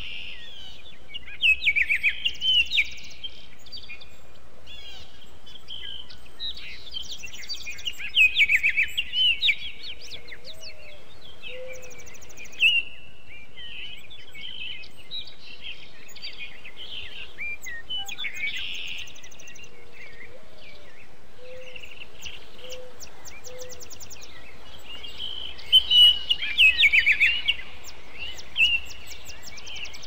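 Songbirds singing in several bursts of quick, high chirping phrases, the loudest near the start, around a third of the way in and near the end, over a steady faint hiss. A few faint low notes sound in the background.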